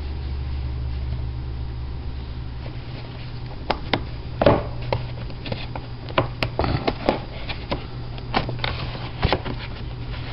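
A loose run of sharp clicks and knocks as plastic Blu-ray cases are handled at a wooden shelf, over a steady low hum.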